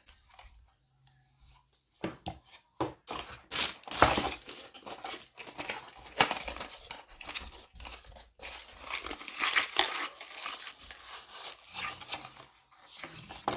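Packaging being rustled, crinkled and torn open by hand, with irregular small clicks and knocks of parts being handled.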